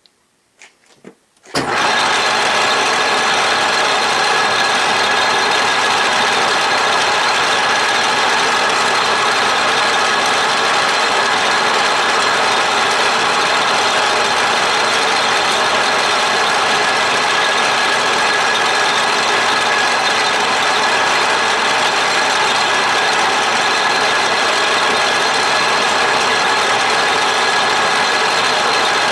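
A few light clicks as the index pin is set and locked. About a second and a half in, the gear-cutting setup on an Atlas/Craftsman 12-inch lathe starts up and runs loud and steady, cutting a gear tooth.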